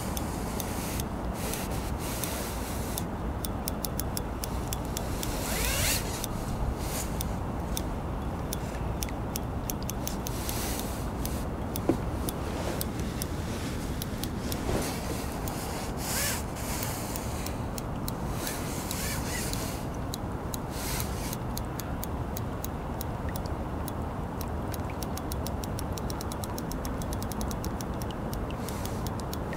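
Wind rumbling on the microphone while a fishing reel ticks as a hooked fish is played on a bent rod; the ticks come quick and even near the end.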